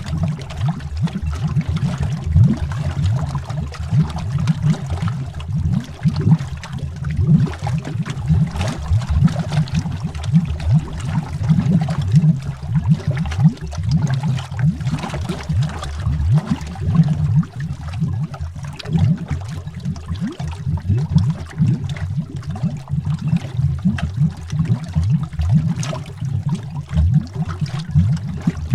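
Air bubbles rising and popping underwater, a continuous low, dense bubbling with many small pops.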